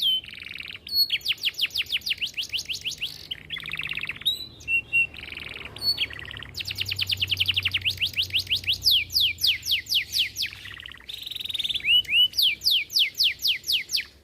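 Domestic canary singing a long, varied song: phrase after phrase of fast trills made of rapidly repeated, high, falling notes, with brief changes of note between phrases.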